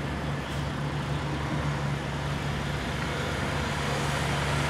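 Steady low engine hum under an even background noise, growing slightly louder toward the end.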